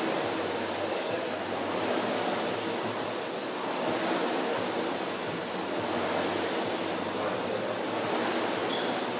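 Concept2 indoor rower's air-resistance flywheel whooshing, swelling with each drive stroke and easing on the recovery, about one stroke every two seconds.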